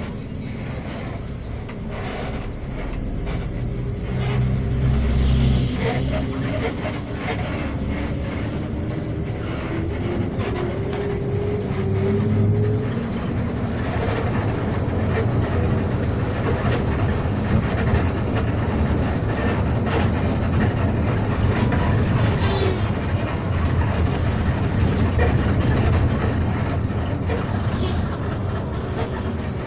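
Cabin noise of a moving bus: a steady low engine and road rumble with frequent small rattles. About a third of the way in, the engine note rises over a few seconds as the bus speeds up.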